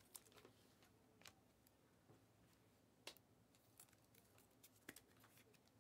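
Near silence: faint room tone with a few scattered soft clicks and taps.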